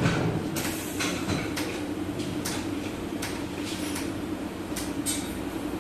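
Short metallic clanks and scrapes from work on an exhaust system under a car, coming irregularly about once a second, over a steady machine hum.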